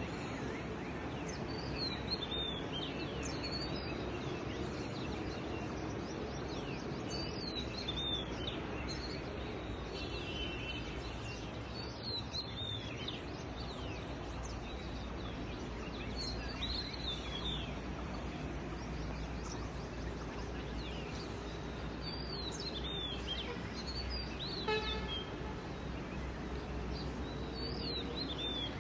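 A bird repeating a short, curling high call every four seconds or so over a steady background noise.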